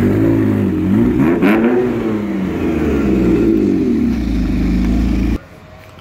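Ferrari 348's 3.4-litre V8 engine revving in a series of blips, its pitch rising and falling. It cuts off suddenly about five seconds in.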